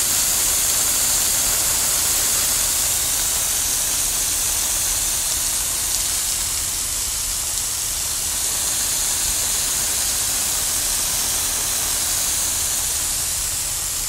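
Water spraying steadily onto dry gravel base material, a continuous hiss, wetting it down so it can be packed.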